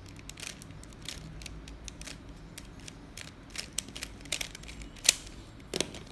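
Plastic puzzle cube being turned by hand in quick layer moves, a run of irregular clicks and rattles with a sharper clack about five seconds in.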